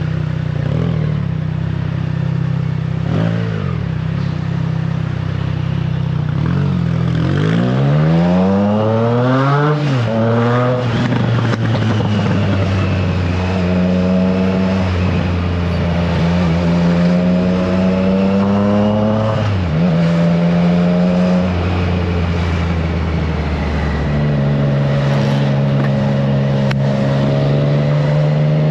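Triumph Trident 660's inline three-cylinder engine through a FireTong exhaust, under way. The engine runs steady, revs climb sharply from about seven to ten seconds in, and then it holds steady revs, dropping briefly near twenty seconds and changing again a few seconds later.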